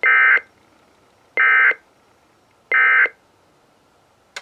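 EAS end-of-message data bursts from a NOAA Weather Radio broadcast: three short, loud, identical buzzing squawks of digital tones about a second and a half apart, marking the end of the required weekly test. A sharp click near the end.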